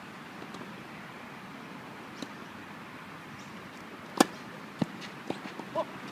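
A tennis racket strikes the ball on a serve: one sharp pop about four seconds in, the loudest sound. It is followed by fainter knocks from the ball bouncing and being played at the far end of the court, under steady outdoor background noise.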